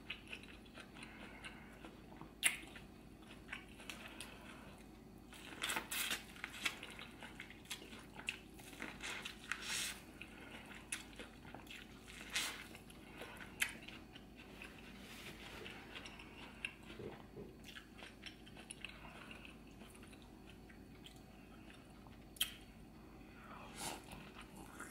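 Close-miked chewing and wet smacking of a person eating saucy seafood boil, broken by a few sharp clicks.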